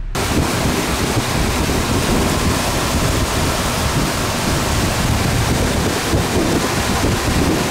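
Loud, steady rushing noise of wind buffeting the microphone together with water, starting abruptly.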